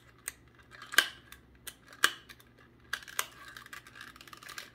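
A small clear plastic accessory case or bag being picked at by hand. It is taped shut. A few sharp clicks come about a second apart, then a quicker run of small ticks and crinkles from about three seconds in.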